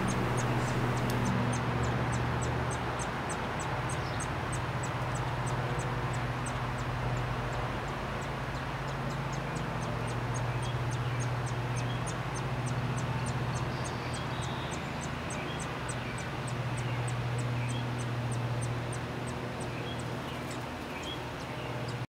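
Outdoor ambience: a steady low mechanical hum, like distant machinery or traffic, under a fast run of faint high ticks, about three to four a second, which pause briefly about eight seconds in.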